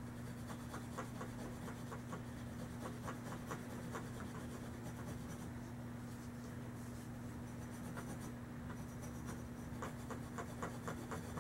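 Short, irregular scratchy rubbing strokes of hand-polishing on the metal breech of a Crosman 760 air rifle, working down machining ridges and rust speckles. A steady low hum runs underneath.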